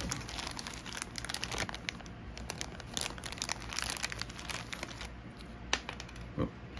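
Clear plastic zip bag crinkling and rustling as it is handled, with a sharper click near the end.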